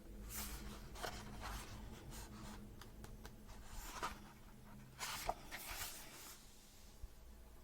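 Pages of a book being turned and handled: a string of soft paper rustles, the fullest about five to six seconds in.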